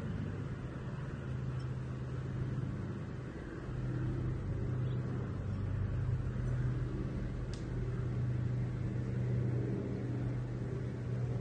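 Engine drone of a firefighting aircraft flying over, a steady low hum that swells and eases a little in loudness.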